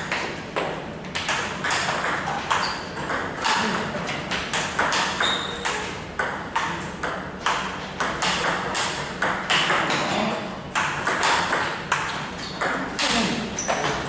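Table tennis ball clicking off rubber paddles and bouncing on the table in a fast rally, about three to four sharp clicks a second.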